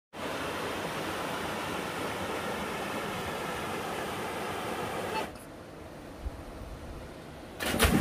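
Mountain stream water rushing over rocks in a steady hiss; about five seconds in it drops to a quieter wash. Near the end a loud splash into a pool.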